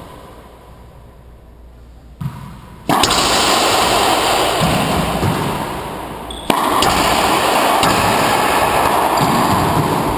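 Racquetball doubles rally on an enclosed court: ball strikes off racquets and walls. About three seconds in, a loud steady rushing noise starts abruptly and covers the court sounds, with a sharp knock partway through.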